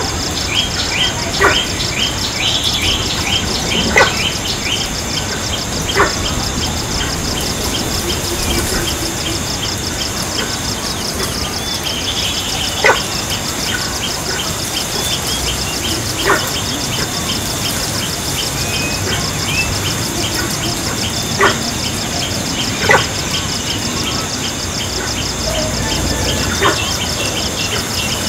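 Forest ambience: birds chirping over a steady high buzz with a fast, even ticking in it, and several sharp clicks scattered through.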